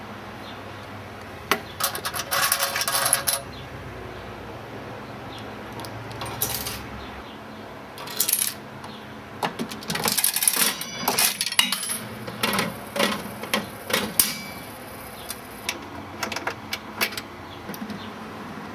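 Mechanism of an Aristocrat mechanical slot machine working with its cabinet open: several bursts of metallic clicking and clattering, the busiest run in the middle.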